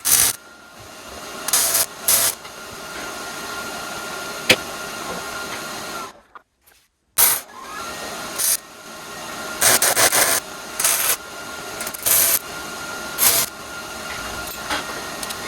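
Electric arc welding on steel: two long runs of steady hissing arc noise with sharp loud bursts throughout, broken by a short pause about six seconds in.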